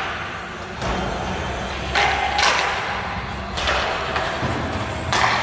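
Roller hockey play in a rink: several sharp knocks of stick and puck striking each other and the boards, each ringing out in the hall's echo.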